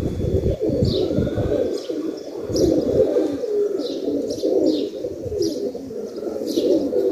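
Domestic pigeons cooing, several at once in overlapping low calls, with short high chirps from smaller birds over them.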